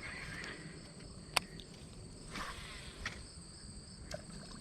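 Steady high insect trilling, like crickets, with a single sharp click about a second and a half in and a few fainter clicks and rustles after it.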